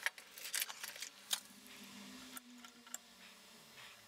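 Faint metal ticks and short scrapes from a steel scriber scratching a reference line onto small aluminium steering-rack brackets, marking where their holes are to be drilled. There are a few sharp clicks, about half a second, one and a quarter seconds and three seconds in.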